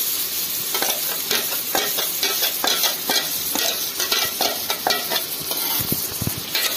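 Vegetables frying in oil in a kadai, sizzling steadily as tomato-tamarind paste is poured in. A steel ladle clicks and scrapes many times, scraping the paste from the bowl and stirring it through.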